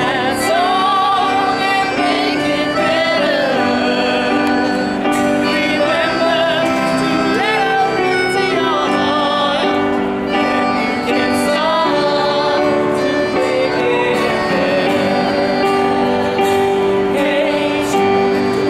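Live jam music: voices singing over a strummed acoustic guitar, with a melodica and an electronic keyboard holding long notes.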